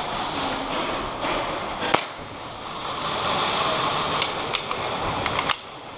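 Airsoft guns firing: one sharp crack about two seconds in, then a quick run of about six near the end, over a steady rustling hiss.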